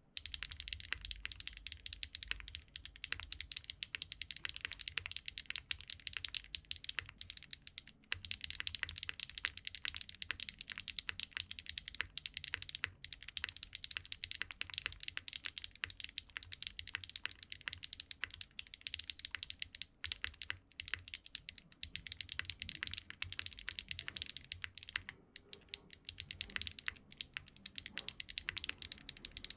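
Fast continuous typing on a Geonworks F2-84 custom mechanical keyboard with factory-lubed HMX Hyacinth V2U linear switches, a crisp, clacky sound, with brief pauses now and then.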